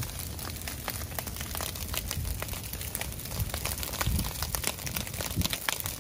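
Prescribed ground fire burning through dry grass and leaf litter: many sharp crackles and pops over a steady low rumble.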